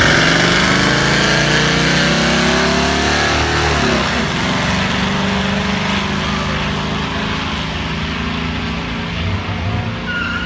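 V8 engines of a Chevy K5 Blazer with a 350 and a Mercury Grand Marquis with a 5-liter, running at full throttle down a drag strip. The engine note rises steadily, drops about four seconds in at an upshift, then carries on at a lower pitch and fades a little.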